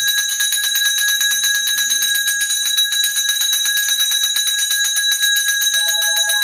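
A puja hand bell rung continuously with rapid, even strokes, giving a steady bright ringing.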